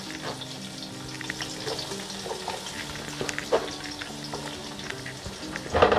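Freshly added sliced onions sizzling in hot oil in a pot, a steady hiss with scattered small crackles and pops.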